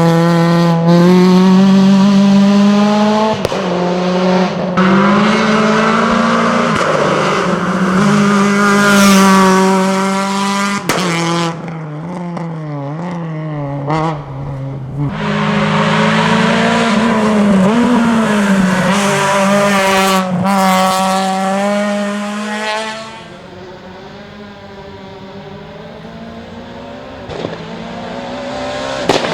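Renault Mégane Maxi rally car's four-cylinder engine at high revs up a hillclimb, its pitch dropping sharply at each gear change and climbing again. About 23 seconds in it drops much quieter, then grows louder again near the end.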